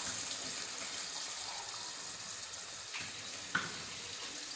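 Browned onions in a pot of just-added water bubbling and sizzling: a steady, even hiss. Two faint clicks come about three seconds in.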